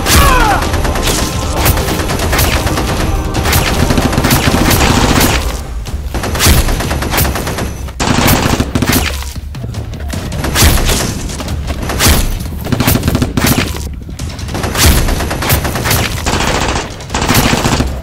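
Volleys of rapid gunfire sound effects, the shots coming in fast runs broken by short pauses, dubbed over a toy Nerf blaster fight, with background music underneath.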